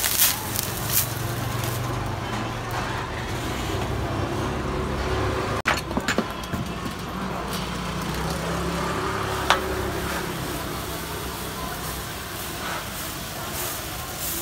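Steady low rumble of road traffic, broken by a few sharp clicks and taps of utensils against the iron griddle.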